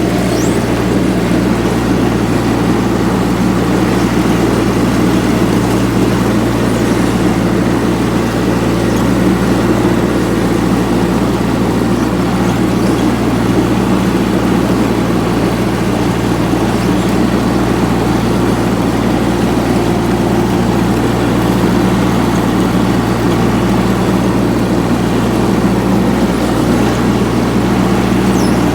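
Kubota G1700 ride-on tractor mower's engine running steadily while mowing grass, a constant low drone with no change in pitch or level.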